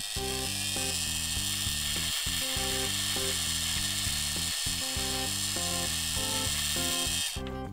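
Grizzly 7x14 mini lathe starting and running with a brass bar in the chuck, turning the brass: a high-pitched whine and hiss that climbs a little in pitch as the spindle comes up to speed and stops suddenly near the end. Background music with a stepped beat plays underneath.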